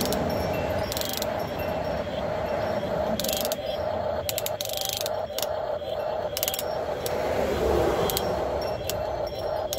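Electric gear motors of a 1/16-scale Double E RC excavator whining steadily as the boom and bucket dig, with short stretches of gear clicking every second or so. Vehicles pass on the road, one at the start and a louder one about eight seconds in.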